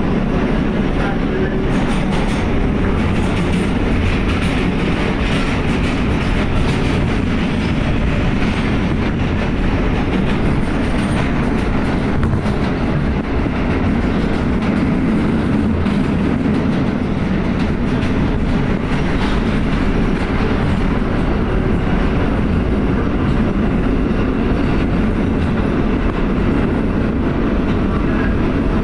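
R143 subway car running through a tunnel, heard from inside the car: a steady, loud rumble of steel wheels on the rails, with scattered clicks over the track.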